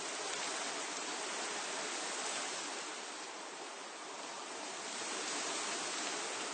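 Wind blowing through the leaves of trees, a steady rustling rush of foliage that eases a little about halfway through and then swells again.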